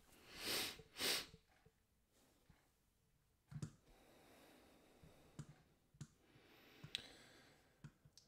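Two short, noisy breaths through the nose in the first second or so, then about five faint scattered clicks from a computer being operated.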